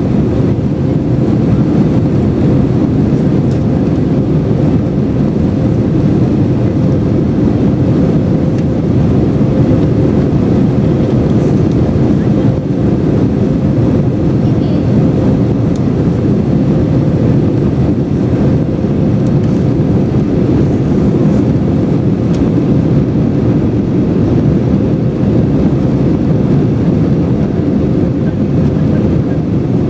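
Steady engine and airflow noise inside the cabin of an Airbus A321-200 airliner in flight, a constant low rumble with a faint steady hum running through it.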